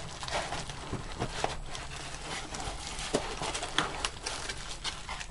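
Black anti-static bubble-wrap bag crinkling and crackling in irregular small clicks as the wrapped graphics card is handled and lifted out of its cardboard box.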